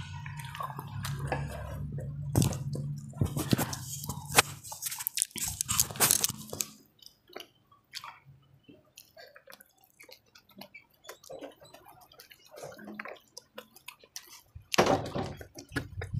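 Close-up eating sounds: wet chewing, smacking and clicking of a mouthful of rice and fish, with the fingers picking food from the plate. The clicks are densest in the first few seconds, sparse in the middle, and come in a louder cluster near the end.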